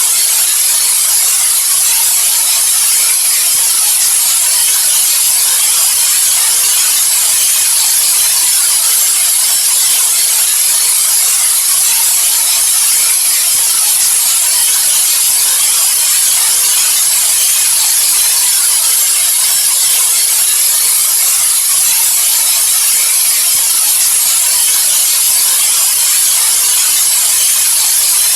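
Steady white noise: a loud, even hiss that does not change, strongest in the high treble.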